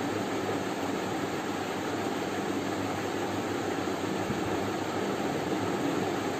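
Steady, even rushing noise with a low hum underneath, unchanging throughout.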